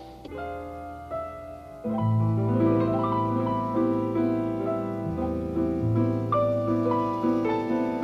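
Gentle piano music, soft at first and growing fuller with low bass notes about two seconds in.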